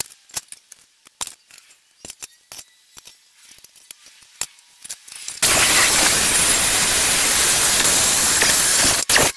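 Scattered light clinks and taps as a steel flat bar is handled and marked. About five seconds in, an electric abrasive cut-off saw starts cutting through the steel bar with a loud, steady grinding that stops abruptly near the end.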